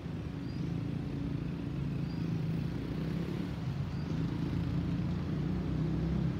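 Low, steady rumble of an Airbus A320neo's CFM LEAP-1A turbofan engines as the jet flies away after passing overhead, growing slightly louder. A few faint high chirps sound over it.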